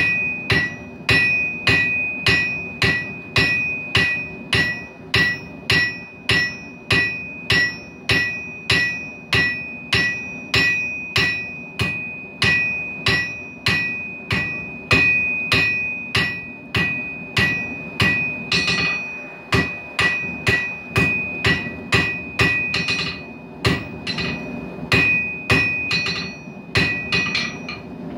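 A hand hammer strikes steel on an anvil during forging, about two blows a second, each with a ringing note. There is a short break about two-thirds of the way through, and the blows stop just before the end.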